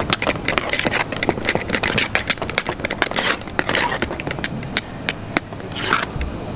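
Metal spatula beating cream in an aluminium pot, with fast clicks and knocks of metal on the pot wall and bursts of wet scraping.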